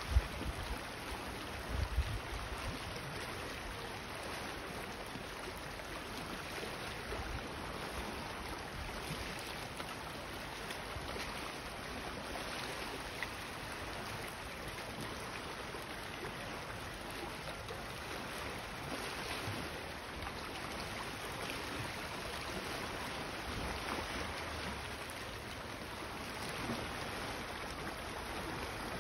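Calm sea washing gently against shoreline rocks: a steady, even hiss of moving water, with a couple of low thumps in the first two seconds.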